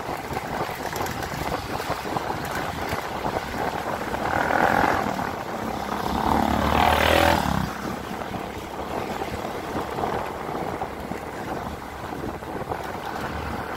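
Riding a motorcycle: steady engine running with wind rushing over the microphone. A louder engine swells and fades about six to seven seconds in, as a three-wheeled motor cart is passed close by.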